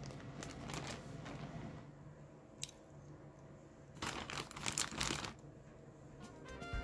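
Rustling, crinkling handling noises in two bursts, one at the start and another about four seconds in, with a single sharp click between them.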